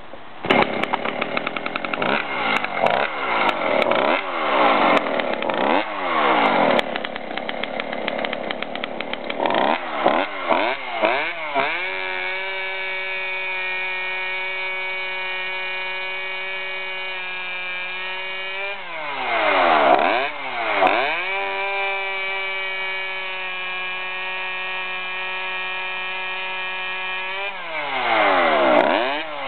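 Two-stroke Husqvarna Special 40 chainsaw running without a muffler through a homemade stainless-steel expansion chamber. It is revved up and down in quick blips for about eleven seconds. Then it is held at a steady high pitch for about six seconds, twice, with a dip and recovery between, as it cuts wood.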